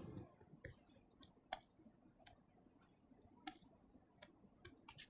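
Near silence with about six faint, short clicks or taps scattered irregularly, the clearest about one and a half seconds in and a second later.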